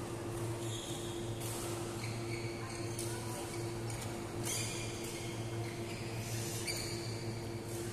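Badminton rally: rackets striking a shuttlecock about every second and a half, with short squeaks of court shoes, over a steady low hum.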